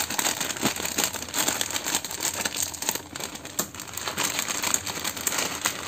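Plastic instant-noodle packet crinkling and crackling continuously as it is squeezed and handled.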